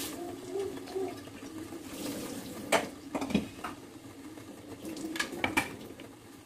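Clinks and knocks of a metal idli steamer plate and pot as dumplings are set into it for steaming: a few sharp strikes about three seconds in and a small cluster just after five seconds.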